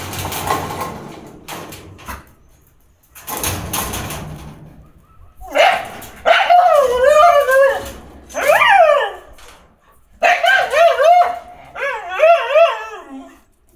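Kombai dogs whining in excitement: after two bursts of noise, a run of high, wavering whines from about five seconds in, rising and falling in pitch, with a short break before a second run near the end.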